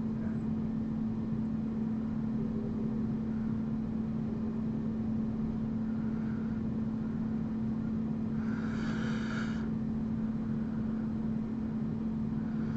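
Steady low hum over a faint rushing noise: the background hum of the room or recording setup. A brief faint higher sound about nine seconds in.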